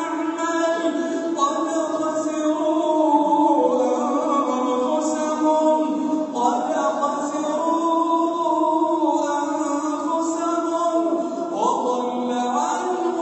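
Quran recitation chanted by one voice in melodic tajweed style, drawing out long ornamented notes that slide up and down in pitch, with rising sweeps in the middle and near the end.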